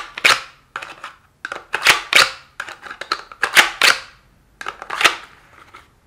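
A pistol with a weapon-mounted light being worked into and out of a rigid plastic holster: a series of sharp plastic clicks and snaps as it seats and releases, about seven in all with short pauses between.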